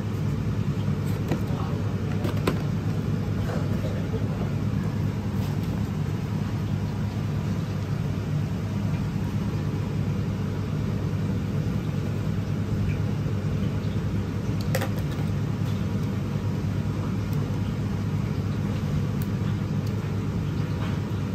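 A steady low machine hum that does not change, with a couple of faint clicks.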